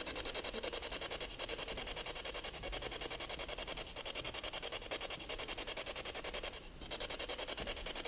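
Choppy static hiss from a ghost-hunting device, pulsing about eight times a second, with a brief dip about two-thirds of the way in.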